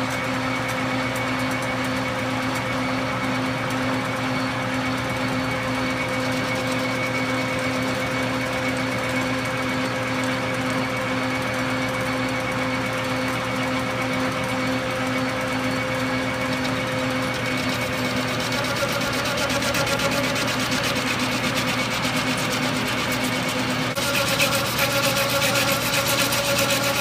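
Metal lathe running and turning a large aluminium slug, a steady motor whine under the cutting noise. The cutting sound shifts about two-thirds of the way through and turns louder and harsher near the end.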